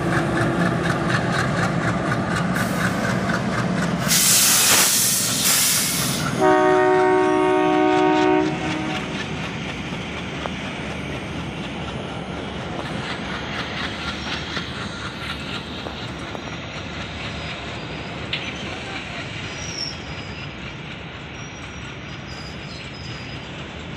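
Diesel goods locomotive running as it passes, with a burst of hiss about four seconds in and its horn sounding for about two seconds just after. Then the long train of covered goods wagons rolls by with a steady rumble and wheel clatter, slowly fading.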